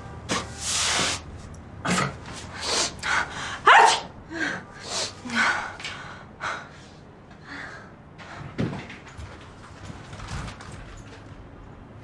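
A person sneezing again and again, a run of sharp sneezes and gasping in-breaths, the loudest about four seconds in and tailing off after about nine seconds: an allergic reaction to lily pollen.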